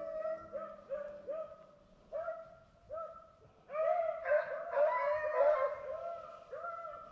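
Beagles baying in short, repeated arched yelps, one hound at first and then several voices overlapping from about four seconds in: the pack giving tongue as it runs a rabbit.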